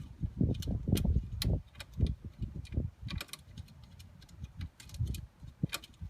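Irregular light clicks and taps with dull low knocks, the handling noise of parts being fitted back into place behind the glove box.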